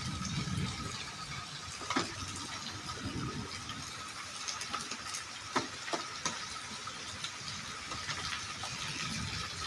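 Steady rain falling on brick paving and puddled soil, with a few sharp taps about two seconds in and again around five and a half to six seconds in.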